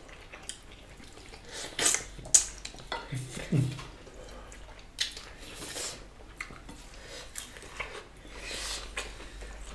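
Eating sounds from two people eating with their hands: chewing and mouth noises, with scattered clicks and clinks of plates and bowls, the sharpest a little over two seconds in.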